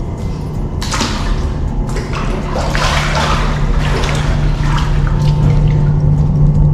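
Water running into the tubs of a ferry's public bath over a steady low hum. The rush of water grows louder from about a second in and eases again a few seconds later.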